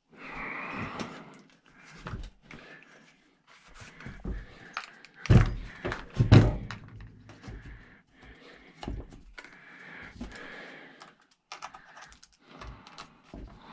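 Hand tools working on a chainsaw being taken apart: scattered clicks, scrapes and clinks of metal and plastic parts, with two louder thunks about five and six seconds in.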